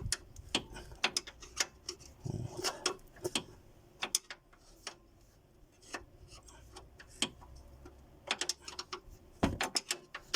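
Irregular metallic clicks and clinks of a 14 mm box-end wrench being worked and repositioned on a suspension bolt, some in quick clusters with short pauses between them.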